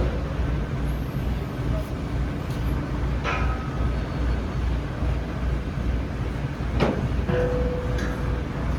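Crane's engine running with a steady, pulsing low rumble. A single sharp knock comes about seven seconds in.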